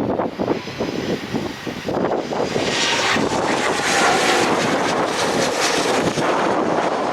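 Aircraft engines running as a plane passes, the sound swelling to its loudest about halfway through and easing off near the end.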